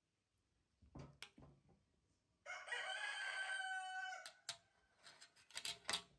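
A rooster crowing, one call lasting almost two seconds, beginning about two and a half seconds in. A few sharp clicks and knocks come before and after it, most of them near the end.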